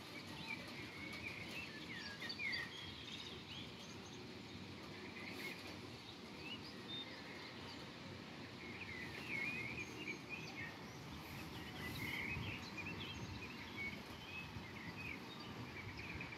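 Several songbirds chirping and twittering on and off over a steady low background hum.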